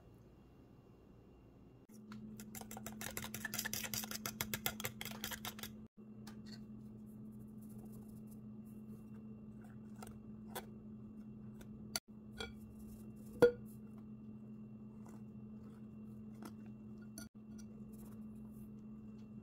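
Wire whisk beating ingredients in a glass mixing bowl. About two seconds in comes a quick rattle of rapid clicks lasting about four seconds, then occasional light taps and clinks of the whisk on the glass, with one sharper knock past the middle.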